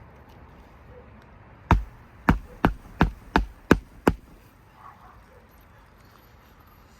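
Seven quick hammer blows driving a roofing nail through an asphalt shingle, about three a second, starting about two seconds in.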